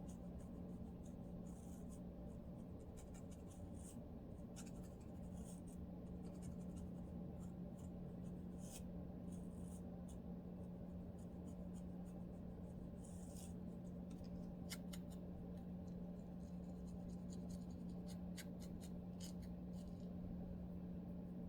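Lice comb scratching through dry, flaky scalp and hair: faint, irregular short scrapes and ticks, over a steady low hum.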